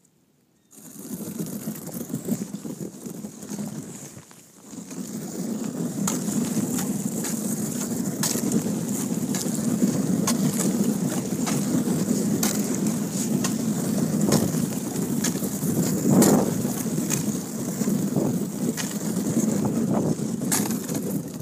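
Thin river ice crunching and crackling against a kayak's hull as the boat pushes through it: a steady rough grinding with many sharp cracks. It starts about a second in, drops briefly near four seconds, and the loudest crack comes near sixteen seconds.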